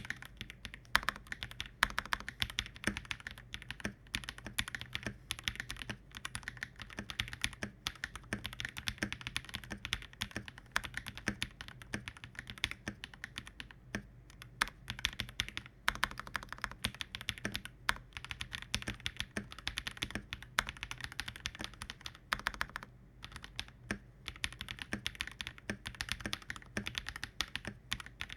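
Fast, continuous typing on an NJ80 custom mechanical keyboard with lubed Akko Matcha Green switches, damped by case foam, plate foam and a Poron switch pad, and with DMK keycaps. The keystrokes run densely, with brief pauses about 14 and 23 seconds in.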